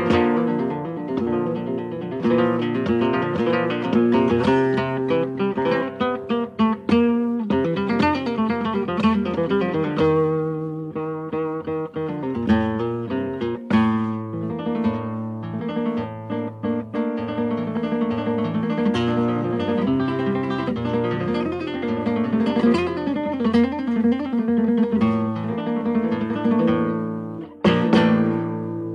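Background music: a solo acoustic guitar played in flamenco style, with quick plucked runs. Near the end a final chord is struck and left ringing as the music fades out.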